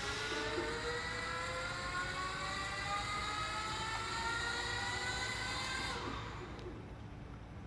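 Brushless electric drive motor of a remote-control wheeled chassis whining as it speeds up, its pitch rising steadily for about six seconds before it winds down and fades out.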